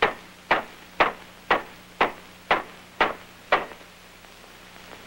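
Ball-peen hammer blows on soft metal, shaping it: a steady run of sharp strikes about two a second, eight in all, stopping about three and a half seconds in.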